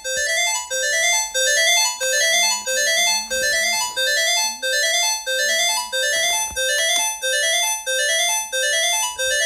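Emergency alert alarm tone: an electronic, keyboard-like two-note figure, a low note stepping up to a higher one, repeated about twice a second.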